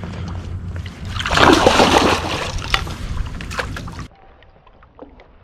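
Hooked largemouth bass thrashing and splashing at the water's surface beside a kayak as it fights the line, with a loud burst of splashing about a second in. A steady low rumble lies under it and cuts off suddenly about four seconds in.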